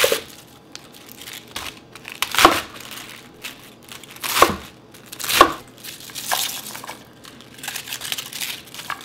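A chef's knife crunching through a raw cabbage wedge on a wooden cutting board, with several crisp cuts a second or two apart. Near the end come the softer crinkle and rustle of cabbage leaves being pulled apart and dropped into a pan.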